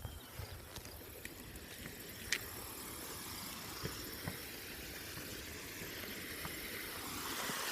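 Fast-flowing creek water rushing as a steady hiss that grows louder toward the end, with a few sharp clicks, the loudest right at the start.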